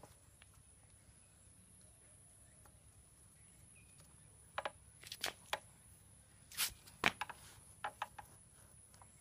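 Short hard clicks and knocks of parts being handled and fitted at a motorcycle's front wheel hub, where a speedometer gear pinion goes in: about half a dozen, starting about four and a half seconds in, the loudest two near the seven-second mark.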